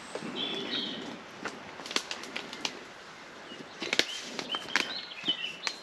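Footsteps through boggy, overgrown ground, with twigs and brush cracking in a run of sharp snaps. Small birds chirp briefly near the start and again towards the end.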